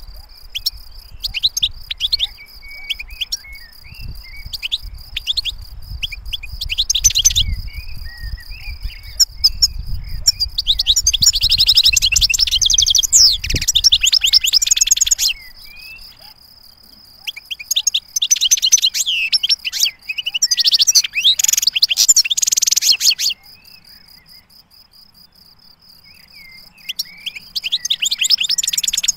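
Caged European goldfinch singing in bursts of rapid, twittering song. The longest and loudest phrases come about a third of the way in and again in the second half.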